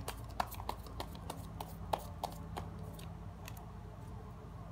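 Tarot cards being handled: light, irregular clicks and snaps of the cards, about three a second, as one is drawn and laid on the spread, stopping about three and a half seconds in. A faint steady low hum runs underneath.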